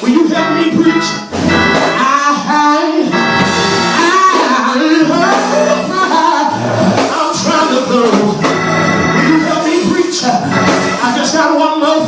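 Church organ playing continuously with a voice singing over it.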